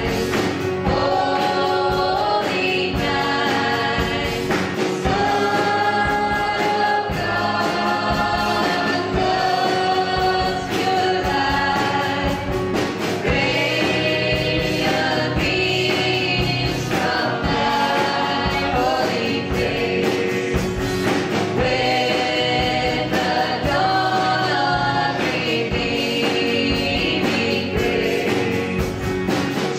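A live church worship band of guitars, drums and several singers performing a hymn, with a steady beat under the sung melody.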